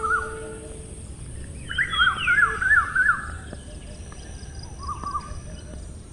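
Small birds chirping: a cluster of quick up-and-down chirp phrases about two seconds in, then a shorter chirp near five seconds, over a low steady background hiss.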